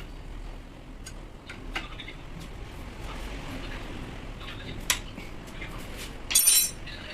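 Light clicks and taps of small metal rotary-hammer parts being handled, with a louder ringing metallic clink about six and a half seconds in.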